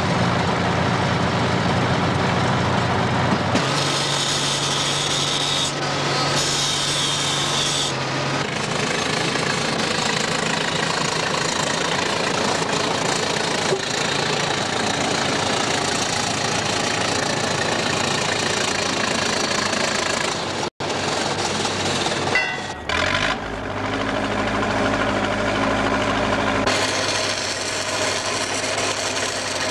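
Machinery engines running steadily on a pipeline construction site, the sound changing abruptly several times between shots.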